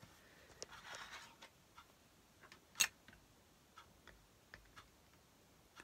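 Faint, scattered small clicks, irregularly spaced, with one slightly louder click about three seconds in, over quiet room tone.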